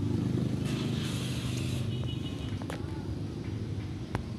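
A motor vehicle's engine rumbling low and steady, easing off gradually, with a sharp click near the end.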